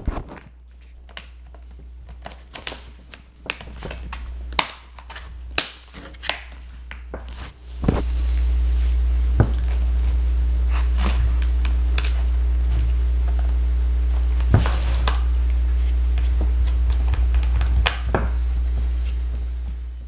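Hard plastic clicks and knocks as a laptop's bottom access cover is handled and snapped into place, then scattered small clicks of a Phillips screwdriver driving the cover screws back in. From about eight seconds in, a loud steady low hum lies under the clicks.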